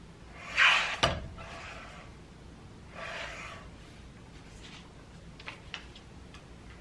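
Sliding-rail paper trimmer in use on label sheets. The cutting head is run along its rail with a swish that ends in a sharp click about a second in. A second, quieter swish follows about three seconds in, and a few light clicks come near the end as the paper is handled.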